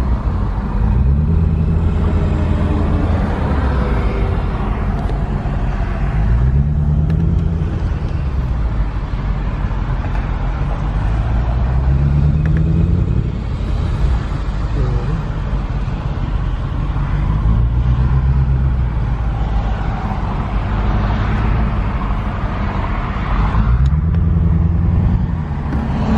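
Car cabin noise in slow stop-and-go highway traffic. The engine's low hum rises in pitch several times as the car pulls forward, over a steady rush of road noise.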